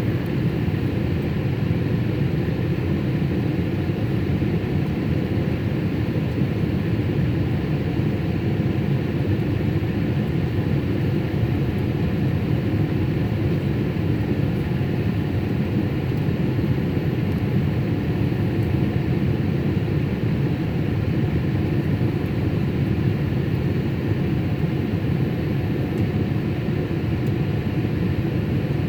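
Steady cabin noise of a Boeing 787 airliner in flight after takeoff: an even, unchanging low rumble of engines and airflow, with a few faint steady tones above it.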